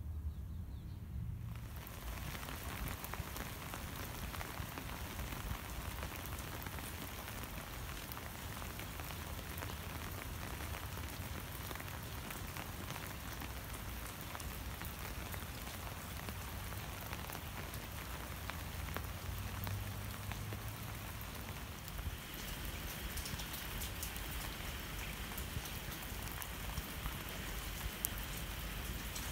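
Rain falling steadily, a dense patter of many small drops, starting about a second and a half in.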